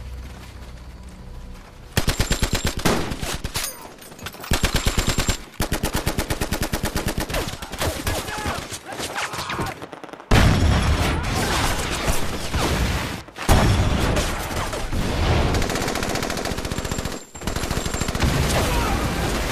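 Long bursts of rapid machine-gun fire in a film battle scene, beginning about two seconds in after a low rumble, with brief breaks between bursts.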